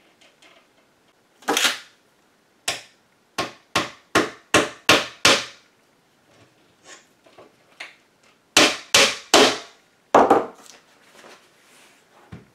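A small hammer tapping brass tacks through a wet goatskin head into the wooden rim of a bodhrán. There are sharp single taps, a run of about eight in the first half, then four more after a short pause.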